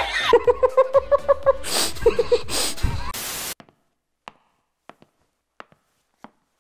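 A man's rapid, high-pitched laughter: a quick string of short repeated cries with a few louder breathy bursts, cut off suddenly about three and a half seconds in. Then near silence with a handful of faint, evenly spaced taps.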